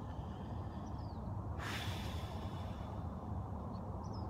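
A person taking one deep, audible breath of about a second, starting a little over a second and a half in, over a low steady background rumble.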